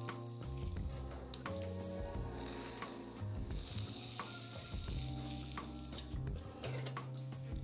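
Meat sizzling on a grid over hot charcoal, with a few sharp clicks of metal tongs as the pieces are turned. Background music plays under it.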